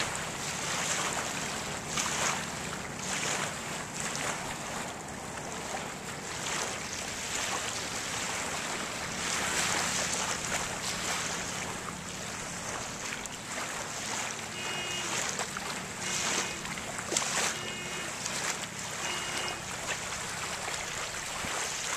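Pencil strokes and erasing scratching on a sketch pad, many short rubs one after another, over a steady background rush of wind and water with a faint low hum. Four short high calls come near the end.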